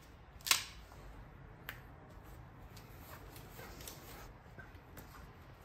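A hand wire tool snapping shut on PV wire with one sharp click about half a second in, then a softer click and a few faint handling clicks.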